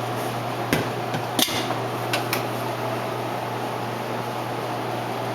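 A few sharp knocks and clicks, soda bottles being set into the vending machine's loading columns, over a steady low hum.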